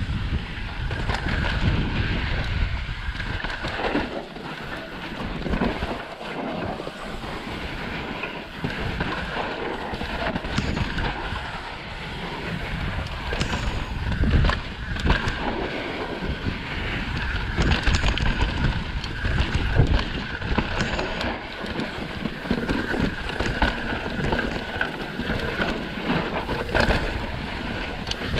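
Wind buffeting the microphone of a downhill mountain bike ridden fast, over the steady rush of knobby tyres on loose, dusty dirt. Frequent knocks and rattles as the bike hits bumps.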